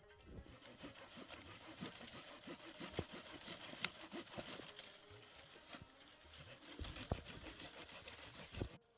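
Dry wood branch being cut with a small hand cutting tool: continuous scratchy rasping with crackles of dry twigs and a few sharper snaps.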